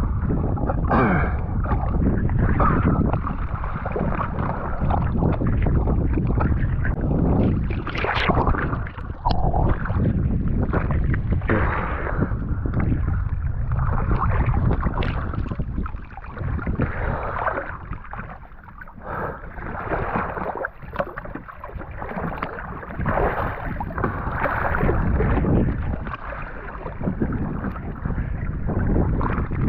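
Muffled rush and sloshing of water with irregular knocks and splashes, with almost nothing above the midrange, as from a camera in a waterproof housing in or at the water.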